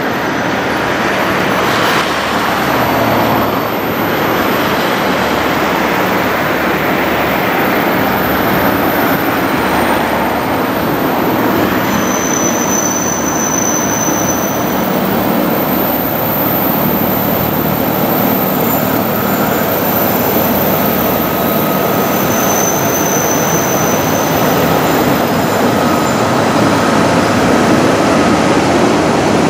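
Several Dv12 diesel locomotives in multiple hauling a loaded freight train past, engines running and wheels rumbling steadily and growing a little louder toward the end. Thin high wheel squeals come in twice on the curve.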